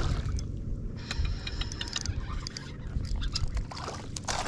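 Water sloshing against a bass boat over a low wind rumble, with scattered small clicks. Near the end comes a short splash as a small hooked bass thrashes at the surface beside the landing net.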